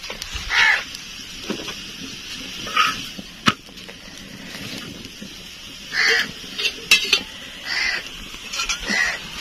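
Metal spoon clinking against a steel bowl and ghee can, with a faint sizzle from a batter flatbread frying in ghee on an iron griddle over a wood fire. A few short animal calls come in between, and there is a sharp click about three and a half seconds in.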